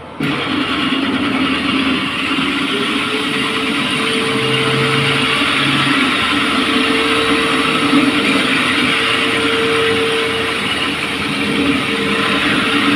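Walk-behind electric floor grinder switching on and grinding a cast terrazzo concrete floor, with its attached dust vacuum running: a steady grinding noise that starts suddenly, with a steady hum joining in about three seconds in.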